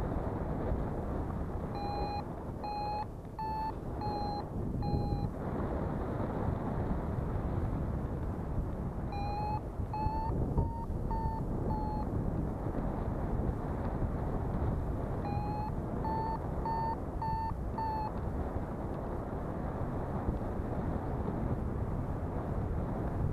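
Paragliding variometer beeping in three short runs of about five beeps, roughly two a second, the pitch rising slightly within each run: the vario's climb tone, signalling lift. Steady wind rushes over the microphone throughout.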